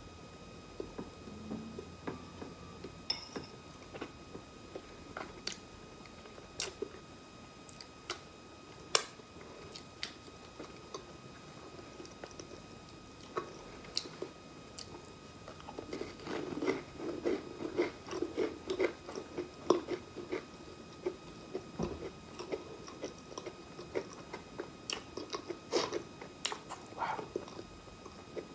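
Close-miked chewing of a crunchy round cracker eaten with soft banana. Sparse sharp clicks and smacks in the first half, then dense crunching from about halfway on.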